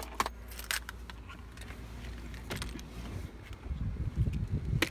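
A few scattered clicks and knocks as the driver's door of a Ford Escape is opened and someone climbs out, then low rumbling noise on the phone's microphone in the last second or so.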